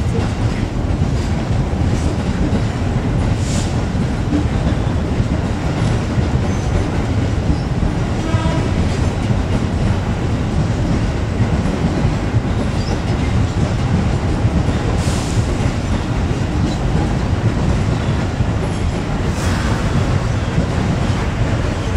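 A rake of passenger coaches being shunted past over yard tracks: a steady low rumble of wheels on rail with three brief sharp noises, the diesel locomotive drawing near toward the end.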